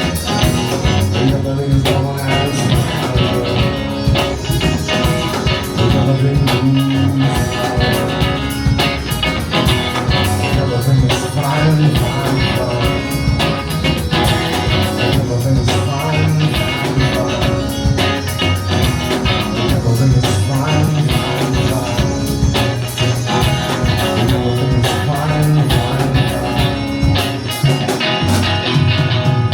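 Live rock band playing loudly: a driving bass line, drums keeping a steady beat, and guitar.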